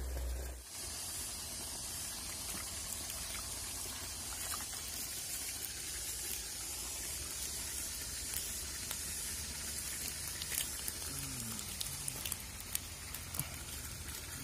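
Steady hiss of a small stream's running water, after a brief low rumble that stops about half a second in. A few light clicks come in the second half.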